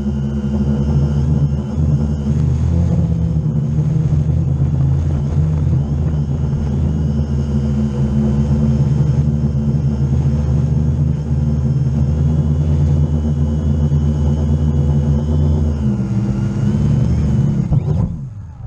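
Quadcopter drone's electric motors and propellers whirring steadily while it hovers, heard from a camera mounted on the drone. Near the end the whir drops away quickly as the drone tips over into the grass and the motors stop.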